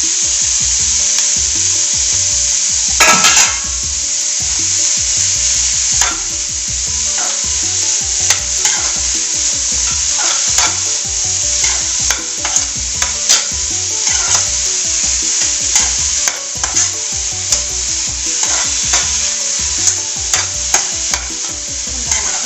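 Chopped oyster mushrooms sizzling in hot coconut oil in a pan while a spatula stirs them, clicking and scraping against the pan many times. A louder burst comes about three seconds in.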